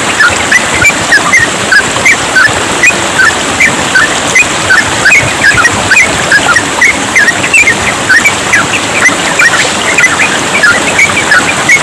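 Yellow-vented bulbuls singing a fast, continuous run of short bubbly notes, several a second, over the steady hiss of trickling water.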